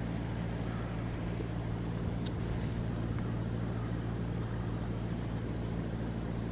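Steady low machine hum of several constant low tones over a light hiss, with two faint short high chirps a little after two seconds in.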